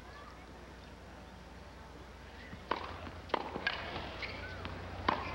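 Tennis ball struck with rackets and bouncing on a hard court during a rally: a few sharp hits from about halfway in, over a low crowd and broadcast hum.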